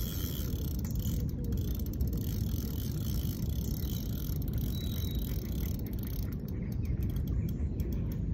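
A fixed-spool carp reel working as a hooked carp is played: the reel's gears whirr with fine, rapid clicking, over a steady low rumble.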